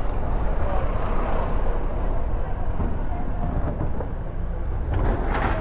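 City road traffic heard from a moving vehicle: a steady low engine and road rumble, with a short hiss near the end.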